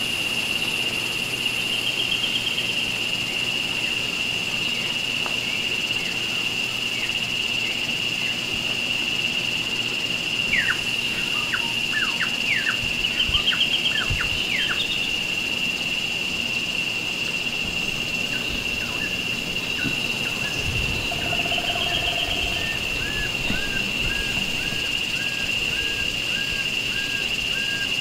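Tropical forest ambience: a steady, high-pitched insect drone runs throughout. A cluster of short falling bird chirps sounds midway, and near the end a bird repeats a short note in a quick, even series.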